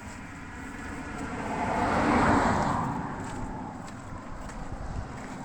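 A car driving past, its tyre and engine noise rising to a peak about two seconds in and then fading away.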